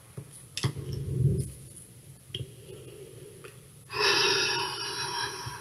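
A woman drinking from a plastic water bottle close to a headset microphone, with a few small clicks and low swallowing sounds in the first second and a half. From about four seconds in, a breath out into the microphone lasts over a second.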